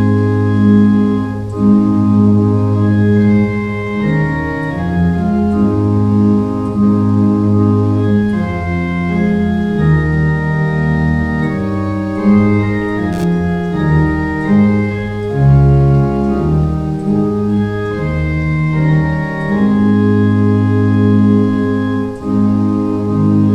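Organ playing slowly in sustained chords that change every second or two, over a deep bass line.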